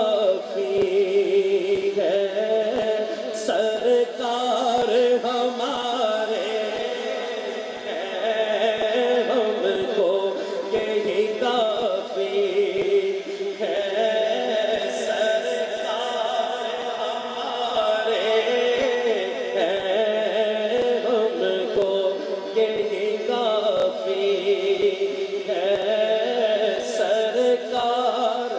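Male naat reciter singing a devotional naat into a handheld microphone, in long drawn-out melodic phrases of several seconds each with short breaks between them.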